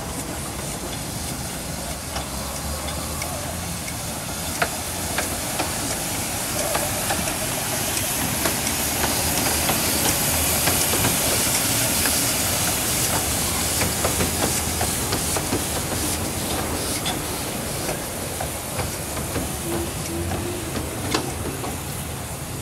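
Steam hissing from a 15-inch gauge 0-4-2T narrow-gauge steam locomotive, a steady hiss that swells louder in the middle, with scattered sharp clicks and knocks of the train.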